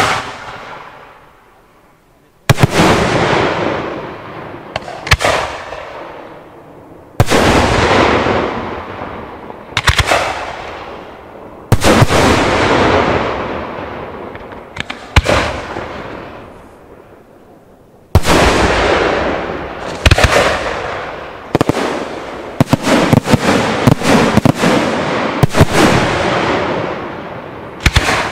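Aerial firework shells bursting one after another, every two or three seconds. Each is a sharp bang followed by a long rolling echo that fades slowly, with a quicker run of overlapping bangs near the end.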